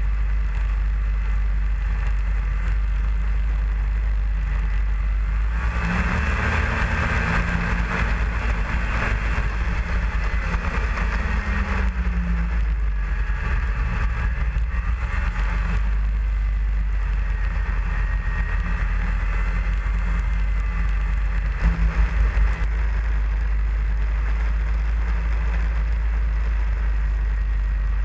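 Snowmobile engine running under way, with a constant deep rumble of wind on the microphone. From about six seconds in, the engine note grows louder for roughly ten seconds, its pitch sliding down once midway, then settles back. A short run of knocks comes a little past twenty seconds.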